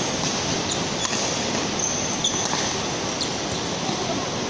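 Badminton rally over a steady rushing noise: brief squeaks of sports shoes on the court floor and a few faint racket hits on the shuttlecock.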